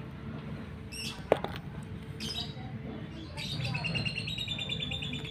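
Small birds chirping, ending in a rapid run of repeated high chirps over the last two seconds. A single sharp tap sounds just after a second in.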